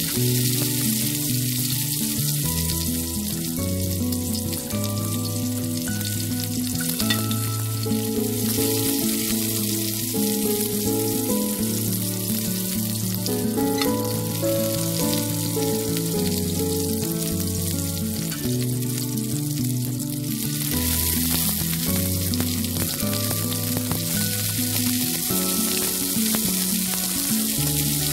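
Food frying in hot oil in a pan, a steady sizzling hiss that grows louder about two-thirds of the way through, under background music with a melody.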